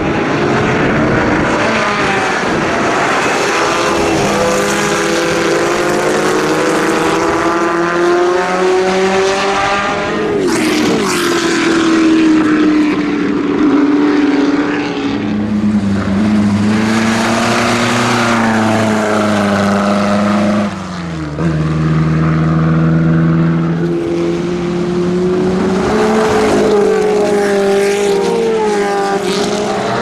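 Racing car engines at speed as several historic race cars pass one after another, each engine note slowly rising and falling in pitch.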